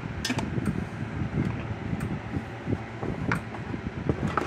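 Red plastic case of a fence charger handled and turned over on a workbench: scattered light knocks and clicks over a steady low background noise.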